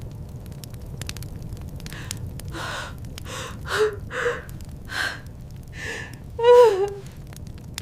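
A person breathing in hard, ragged gasps, about seven breaths in a few seconds. The last is a louder voiced gasp that falls in pitch.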